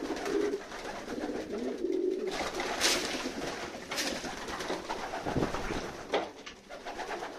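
Racing pigeons cooing in a small loft as they feed on the floor, with a few sharp knocks and a burst of wing flapping among them.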